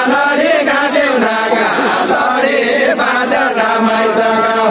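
Group of voices singing a Nepali deuda folk song, several voices overlapping in a chanted melody without a break.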